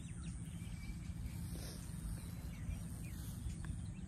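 Wind buffeting the phone's microphone, with a few faint bird chirps over it.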